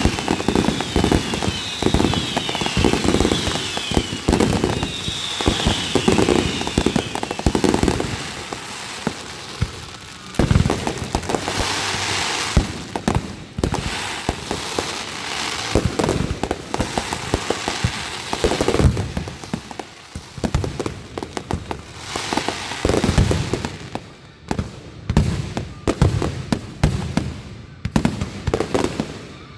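Aerial fireworks going off in quick succession: a dense run of booms from bursting shells and crackling, with short high falling whistles in the first several seconds and a stretch of steady crackling partway through.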